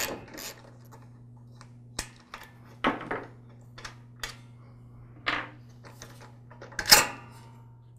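Plastic lower air filter base being worked loose and lifted off a small OHV engine by hand: a scatter of light clicks, taps and plastic rattles, the loudest near the end, over a low steady hum.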